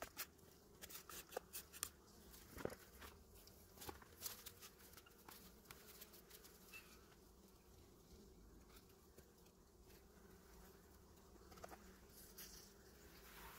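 Faint, steady hum of a honeybee colony in an open hive. Sharp clicks and knocks of a metal hive tool on the wooden frames come through the first few seconds and again near the end.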